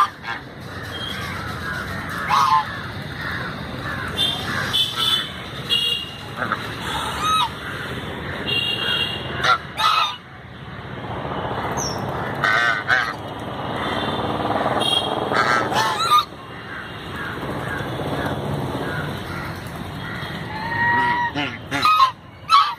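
Knobbed domestic geese honking: many short, loud calls, some with a bending pitch, repeated throughout.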